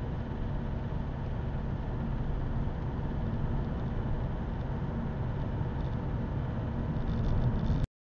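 1.7 CDTI Z17DTJ diesel engine heard from inside the cabin while driving, running with a rough, tractor-like clatter that grows louder near the end. This is the cold-engine knock that the owner traced to a faulty Denso injector, cured by replacing it.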